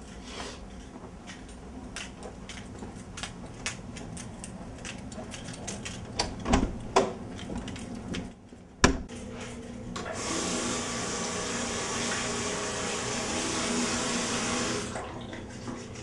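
Scattered clicks and a few loud thumps, then a bathroom tap runs steadily into the sink for about five seconds and is shut off.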